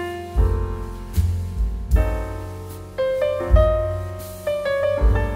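Background piano music: notes struck one after another over low bass notes, each fading away after it is played.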